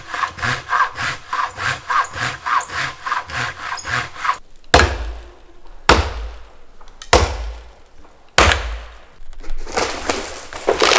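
Hand saw cutting through a dead tree trunk in quick back-and-forth strokes, about three or four a second, stopping after about four seconds. Then come four heavy knocks about a second apart. Near the end the tree cracks and breaks as it falls.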